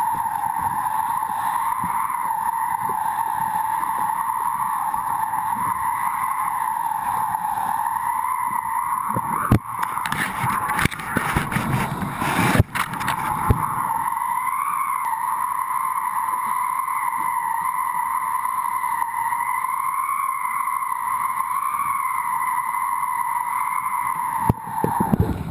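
Steady whistling hum of the kite lines and line-mounted camera in strong wind, one pitch with an overtone that wavers slightly, over rushing wind noise. About ten seconds in come a few seconds of louder rushing and knocks as the board carves hard through spray.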